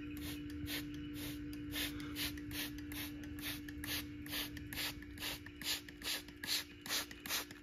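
Hand trigger spray bottle pumped over and over, squirting water onto a burlap sack: a quick click-and-spritz about three times a second, growing louder near the end.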